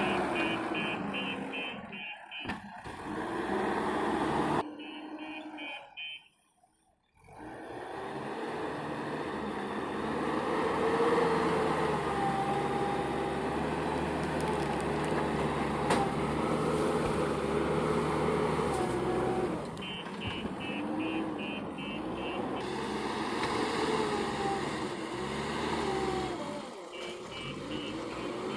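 JCB backhoe loader's diesel engine running under work, its pitch rising and falling. In several stretches its reversing alarm beeps rapidly, about three or four beeps a second. The sound drops out briefly about six seconds in.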